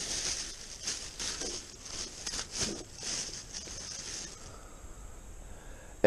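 Thin plastic grocery bag rustling and crinkling in bursts as hands rummage inside it, dying down about four and a half seconds in.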